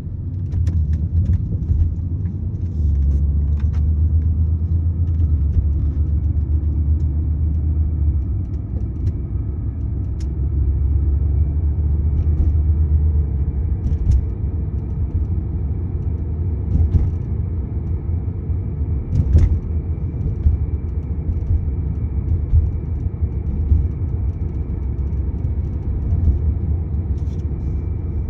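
Car running with a steady low rumble and a faint, steady high-pitched whine, a screeching whining noise that seems loudest toward the rear end; its cause is unknown. A few light clicks come through now and then.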